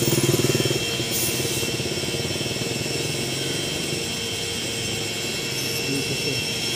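Street ambience with a steady traffic hum; a vehicle engine passes close, loudest in the first second.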